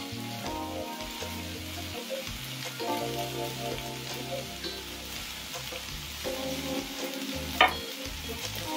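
Mustard seeds and chili powder sizzling in hot oil in a stainless steel frying pan, a steady hiss. A wooden spoon stirs them near the end, with one sharp knock against the pan.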